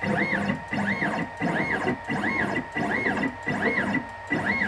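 Stepper motors of a MillRight Carve King 2 desktop CNC router jogging the gantry in short repeated moves: a whine that rises and falls in pitch about three times a second.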